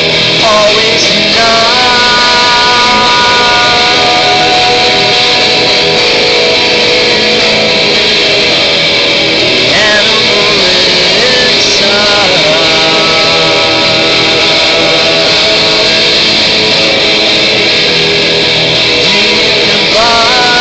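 Loud music with long held notes that slide from one pitch to the next every few seconds.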